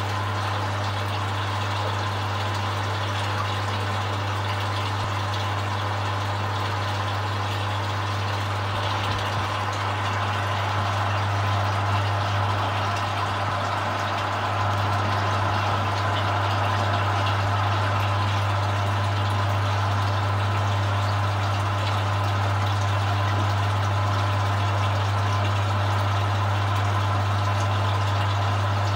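Steady low electric hum with a hiss, from the holding tank's water or air pump heard through the water; it grows a little louder about halfway through.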